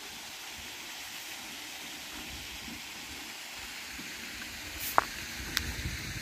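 Steady outdoor hiss, with a few sharp clicks about five seconds in and some low handling rumble near the end as a cast net is gathered and laid down.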